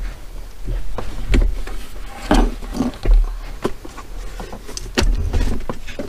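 Irregular clicks, knocks and brief rustling as things are handled and moved about, with dull low thumps.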